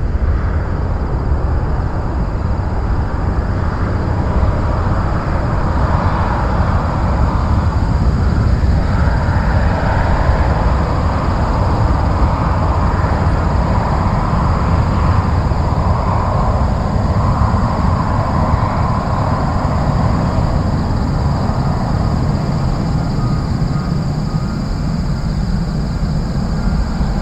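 Jet noise from a Boeing 737-300's twin CFM56-3 turbofan engines at climb power just after takeoff, a loud, steady low rumble as the airliner climbs away.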